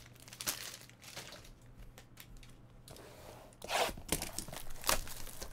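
Trading cards and their packaging being handled: light crinkling and rustling, with a louder rustle a little over halfway through.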